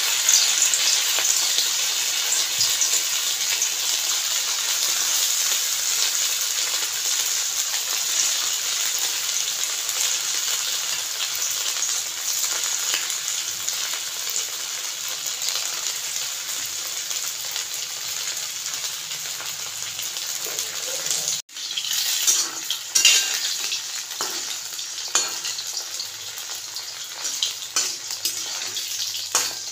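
Batter-coated chicken pieces deep-frying in hot oil in a steel kadhai: a steady, dense sizzle full of small crackles that eases slightly as it goes on. After a brief break about two-thirds through, the crackles come sharper and more separate.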